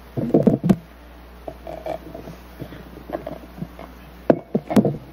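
Brief pause at a panel table: soft, indistinct voices and small handling noises over a low room hum, with a sharp click about four seconds in.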